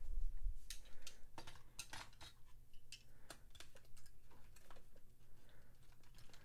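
Light, irregular clicks and clacks of die-cast Hot Wheels cars knocking against each other and the plastic compartments of a round carrying case as a hand picks through them. A low rumble of handling in the first half second.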